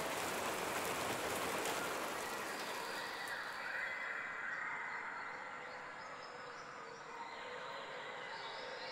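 Rain falling steadily, a dense even hiss that turns duller about three and a half seconds in and then slowly fades.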